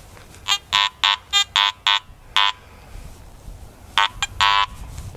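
Handheld metal-detector pinpointer (Garrett Pro-Pointer AT) buzzing in a quick series of short beeps as it detects a nail. About four seconds in come a couple more short beeps and then one longer buzz.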